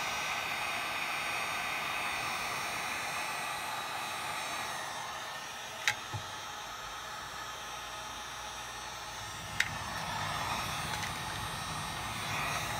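Wagner electric heat gun blowing steadily, its hot air shrinking heat-shrink tubing over soldered fan wires. Two sharp clicks break through, one near the middle and one about three-quarters of the way in.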